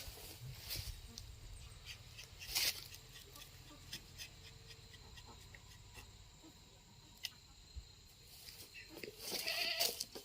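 A bleating animal call near the end, over scattered light clicks and knocks and a thin, steady high-pitched tone.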